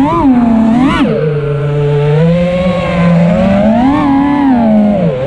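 FPV quadcopter's brushless motors and propellers whining, heard from the onboard camera. The pitch rises and falls with the throttle: two quick surges in the first second, then a lower, steadier tone that climbs again about three seconds in and dips near the end.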